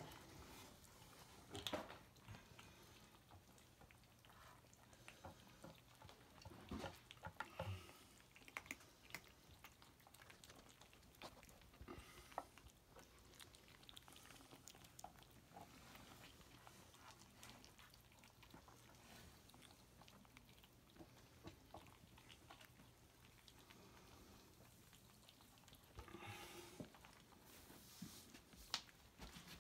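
Bengal kittens eating dry food from a dish: faint crunching and small clicks throughout, with a few louder clicks now and then.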